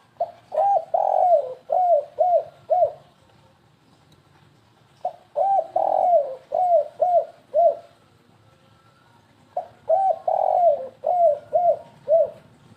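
Spotted dove (tekukur) cooing its stuttering 'kuk-3' song, three times, each about four to five seconds apart. Each is a quick run of coos: a short note, a longer drawn-out one, then several short ones.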